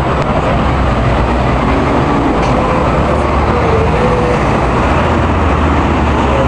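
Steady road traffic noise with a heavy low engine rumble from passing buses and cars, and faint voices of people nearby.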